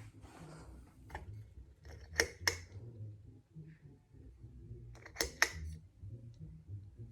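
Ceiling fan pull-chain switch clicking, two quick clicks at a time, twice about three seconds apart, over the low steady hum of the Clarkston ceiling fan's motor.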